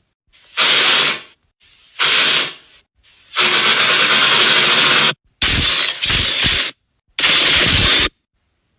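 Cartoon steam locomotive sound effects: five separate blasts of hissing steam, the longest nearly two seconds. The last two blasts have a low rumble underneath.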